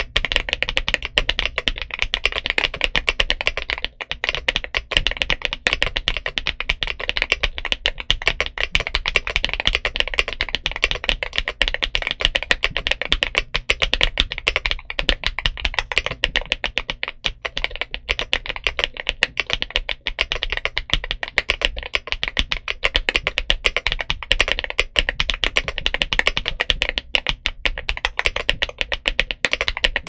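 Yunzii AL75 mechanical keyboard with Cocoa Cream V2 linear switches and double-shot PBT Cherry-profile keycaps, typed on fast and steadily: a dense run of keystrokes with a couple of brief pauses.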